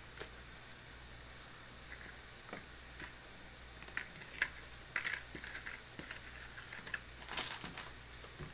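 Scattered light clicks and taps of small items being handled on a tabletop. They are sparse at first and busier about four seconds in and again near the end, over a faint steady low hum.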